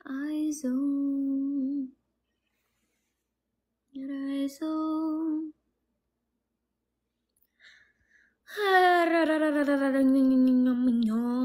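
A woman humming a slow tune in three held phrases, with short pauses between them. The last phrase is the longest and loudest and slides downward in pitch.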